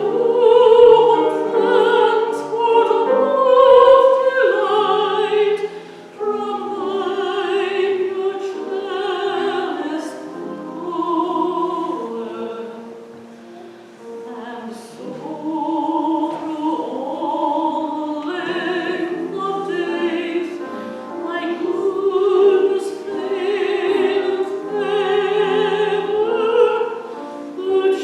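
Classical-style singing, with long held notes that move up and down in pitch and swell and fade in loudness.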